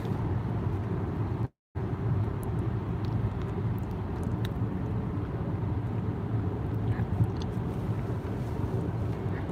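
Steady low road and engine rumble heard from inside a car's cabin while driving at highway speed. The sound cuts out completely for a moment about one and a half seconds in.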